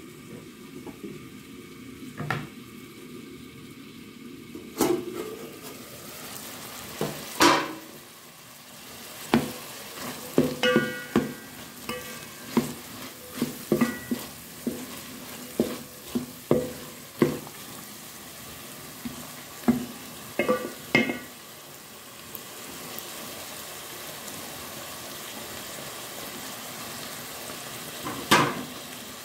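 Sweet corn and carrots sizzling in an aluminium cooking pot while a wooden spoon stirs them, knocking and scraping against the pot in a run of clacks with a metallic ring. A few louder clanks of the metal pot lid, the loudest near the start and near the end.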